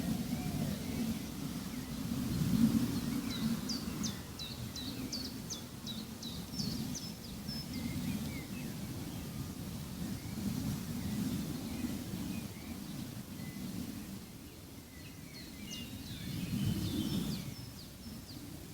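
Nature-sound ambience: a low rumbling wash that swells and fades, with songbirds chirping over it. There is a quick run of about a dozen short, high, falling chirps a few seconds in, and another cluster of chirps near the end.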